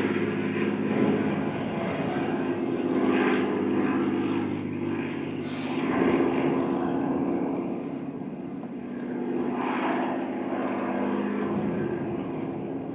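Propeller aircraft engines droning overhead in a steady, pitched hum that swells and ebbs several times and fades toward the end.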